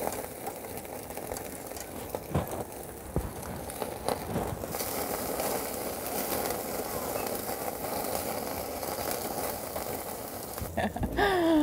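Lamb cutlets sizzling and fat crackling on a barbecue grill, the fat dripping down and making the flames flare up; the sizzle grows louder about five seconds in. A few clicks of metal tongs as the cutlets are turned, and a woman's voice starts near the end.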